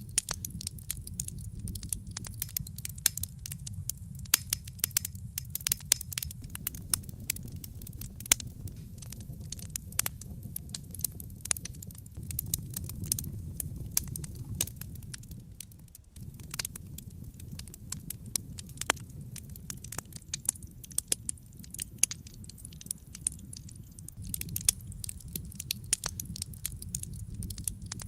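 Wood fire burning in a fireplace: a steady low rumble of flames with dense, irregular crackles and pops throughout.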